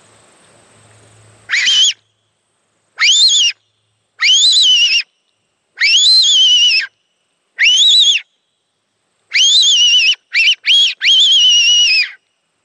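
A fox whistle blown in a series of loud, high squealing rips, about nine in all, each sweeping sharply up in pitch and then sliding down, with the last few coming close together. It imitates a rabbit in distress to call in foxes.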